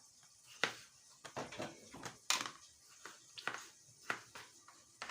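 Knife cutting tomatoes into small pieces: a dozen or so irregular sharp knocks of the blade coming down, the loudest a little over two seconds in.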